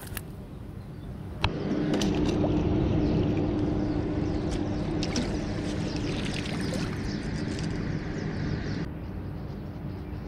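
Footsteps in sneakers scuffing and clicking over large riverbank stones, over a low steady engine hum. The louder part starts abruptly about a second and a half in and drops away abruptly near the end.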